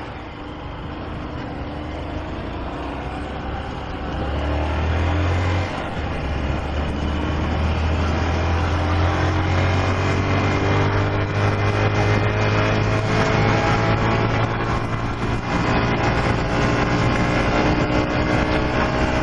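Honda CG 125 Fan motorcycle's single-cylinder engine pulling under way, its pitch climbing slowly. About six seconds in the engine note drops briefly, then climbs steadily again.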